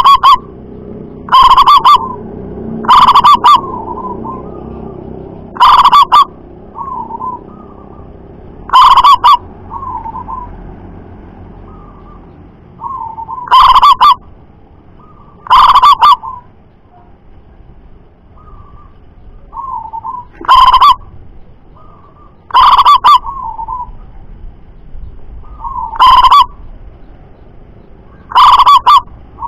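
Zebra dove (perkutut) cooing: about eleven loud, sharp coo notes spaced every two to three seconds, loud enough to distort the recording, each trailed by softer rolling coos.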